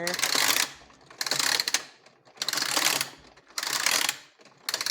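Plastic ratchet clicking in the Hot Wheels Mega Garage's elevator mechanism as it is worked in strokes. Each stroke is a quick run of clicks about half a second long, repeating roughly every 1.2 seconds, four or five times.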